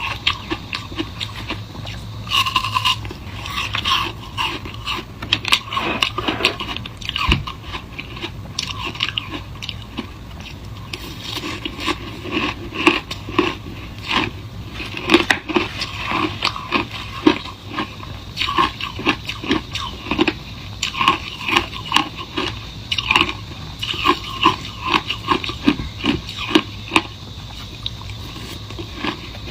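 Close-up crunching of a person biting and chewing shaved ice: a dense, irregular run of crisp crackles and crunches.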